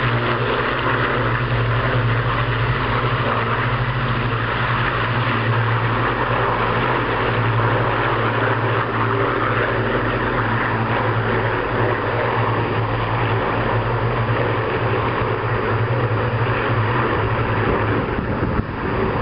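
Two Avro Lancaster bombers flying in formation with two Spitfires and a Hurricane, the steady drone of their Rolls-Royce Merlin piston engines. The drone holds even throughout and dips slightly near the end.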